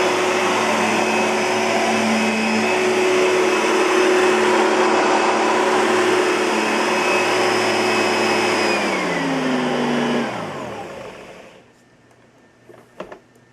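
Oreck Magnesium LW100 upright vacuum cleaner's motor running steadily with a high whine, then switched off about nine seconds in and winding down, its pitch falling as it slows to a stop. A couple of faint clicks near the end.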